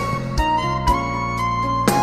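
Background music: sustained melodic instrument notes over a steady beat, with a drum hit about every half second.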